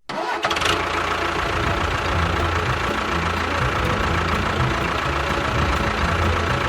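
A small motor running steadily, cutting in abruptly, with an uneven low chugging and a thin steady whine over it.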